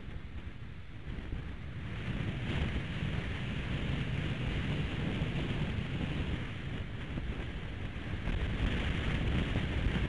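Strong gusty wind buffeting the outdoor nest camera's microphone: a low rumble with a rushing hiss, growing stronger about two seconds in and again near the end.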